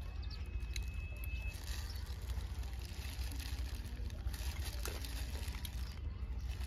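Wind rumbling on the microphone outdoors, with a faint thin high tone during the first second and a half and a few soft ticks.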